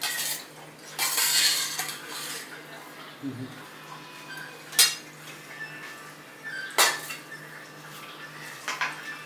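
A stainless-steel serving spoon scraping and clinking against a steel bowl and plate as rice is served, with a longer scrape about a second in and a few sharp metallic clinks later on.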